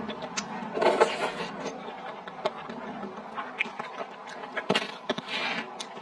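Close-miked eating sounds: a person chewing saucy skewered food, with many short wet mouth clicks and smacks, and two louder rushes of sound, about a second in and again near the end.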